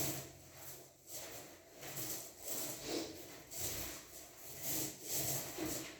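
Repeated rubbing, scraping strokes of a tool working putty over a wall, about one and a half strokes a second.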